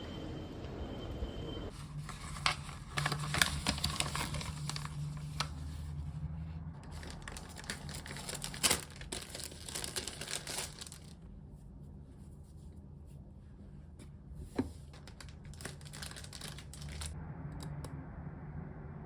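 Crinkling and rustling of a material being handled: a dense run of sharp crackles for about nine seconds, quieter for a few seconds, then a second shorter flurry, over a low steady hum.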